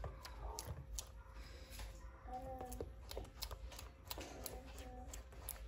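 Silicone spatula stirring a thick condensed-milk and chocolate mixture in a nonstick pan: faint, irregular clicks and scrapes of the spatula against the pan.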